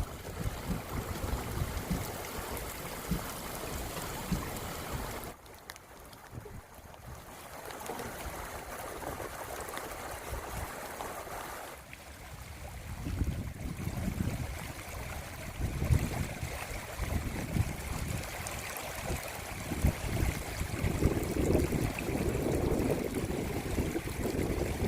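Rainwater running like a stream, a steady rushing hiss, with wind buffeting the microphone in low rumbling gusts. The sound drops abruptly about five seconds in and changes again near twelve seconds.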